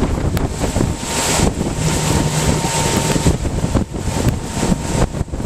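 Heavy wind buffeting the microphone over the running engine and hull of a 1998 Bayliner 2655 cruiser moving through rough water, with a low steady hum coming and going about two seconds in.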